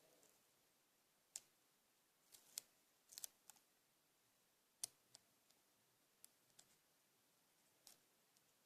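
Near silence broken by faint, scattered clicks and ticks of paper and adhesive tape being handled during paper craft.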